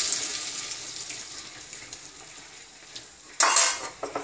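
Tamarind water poured into a hot clay pot over vegetables sautéed in oil, the splashing and sizzling fading away over the first two to three seconds. About three and a half seconds in there is a short, sharp clatter, then a few light clinks.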